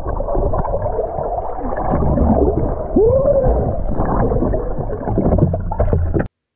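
Muffled water gurgling and sloshing heard through a camera in or under the water, with a low rumble underneath and a few sliding tones, one arching about three seconds in. It cuts off abruptly near the end.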